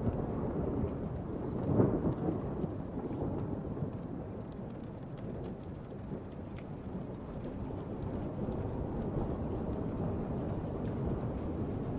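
Thunderstorm: steady heavy rain under low rolling thunder, which swells to a louder clap about two seconds in, with scattered sharp hail impacts.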